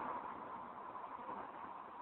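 Faint, steady background noise in a lull between fireworks bangs, with the echo of the last bang dying away at the very start.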